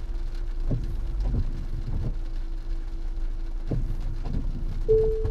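Tesla Model Y creeping backward in the rain, heard from inside the cabin. A steady low rumble of rain and tyres runs under a faint steady tone, with a few soft knocks along the way, and a clearer higher tone comes in near the end.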